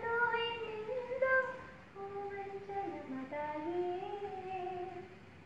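A young caller singing slow, held notes of an Indian classical melody, sliding smoothly between notes, with a short break about two seconds in. The voice comes over a telephone line and is heard through a television speaker.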